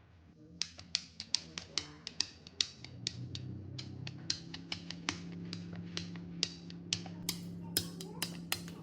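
Irregular sharp clicks or taps, roughly three a second, over a low steady hum.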